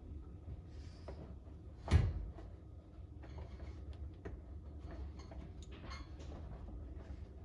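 A single sharp knock about two seconds in, amid scattered light clicks and rustles of things being handled.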